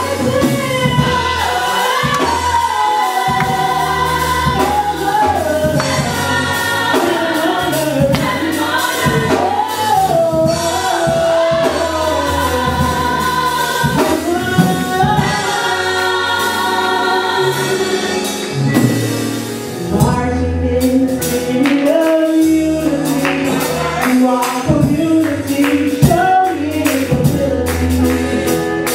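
Gospel worship music: a group of voices singing together over a live band with bass and a steady drum beat.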